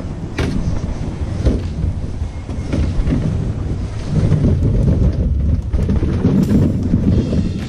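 Heavy low rumbling noise on a body-worn camera's microphone, with scattered knocks and rustles from walking through brush.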